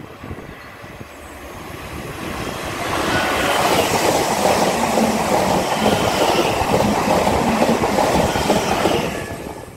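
Electric multiple-unit passenger train approaching and running past beneath on overhead-wired main-line track, its noise building over the first few seconds and dropping away quickly near the end as the last carriage goes by.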